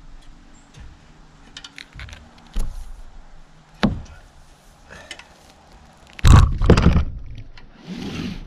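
Knocks and thuds of a heavy roll of roofing underlayment handled on the roof deck. There is a sharp knock just before four seconds in as the roll is stood on end, then the loudest sound, a heavy run of thuds a little after six seconds in as it is laid down, and a brief rustle near the end.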